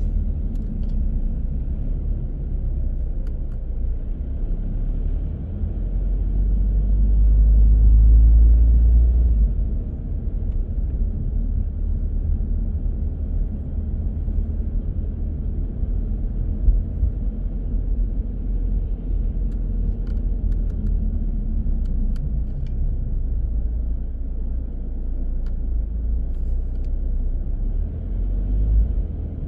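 A car driving, a steady low rumble of road and engine noise that swells louder for a few seconds about six seconds in, then settles back.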